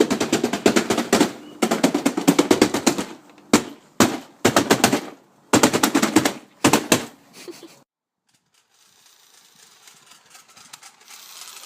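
Automatic gunfire in several rapid bursts of shots, some long and some short, that stop about eight seconds in.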